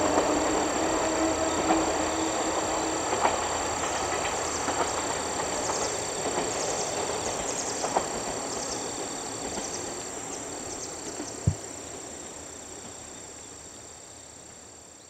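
Diesel railcar train (JR Kyushu KiHa 147/47 set) running away along the track. Its engine and wheel rumble fades steadily into the distance. A single sharp knock comes about three-quarters of the way through.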